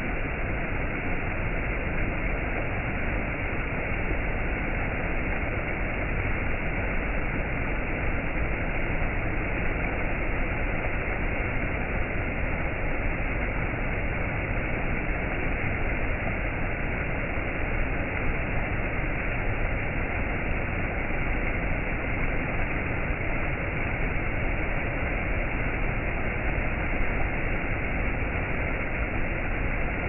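Steady rush of stream water pouring over rocks in small cascades, an even, unbroken splashing.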